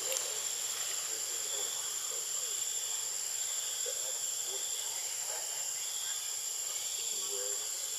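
Insects droning in a steady, high-pitched chorus, with a second, lower band that swells and fades. Faint brief calls sound underneath.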